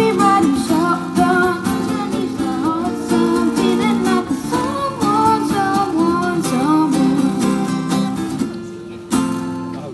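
A boy singing with a strummed acoustic guitar, amplified through PA speakers. The voice stops about eight seconds in, leaving the guitar strumming on its own.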